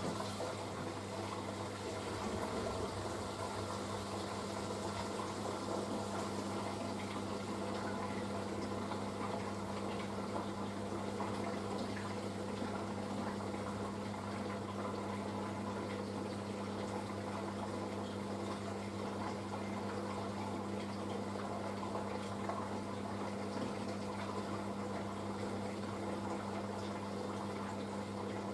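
Panasonic washing machine filling with water on its wool cycle: a steady rush of water into the drum over a constant low hum.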